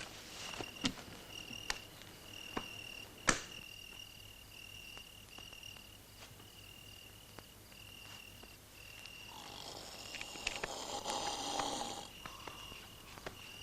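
Crickets chirping steadily, with a few sharp clicks in the first few seconds. About nine seconds in, a man starts snoring: one snore lasting about three seconds, then a fainter one.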